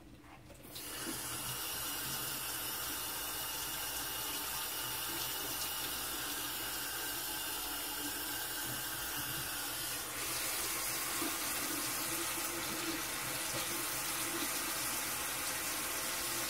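Bathroom sink faucet turned on about a second in, water running steadily into the basin. The flow grows louder about ten seconds in.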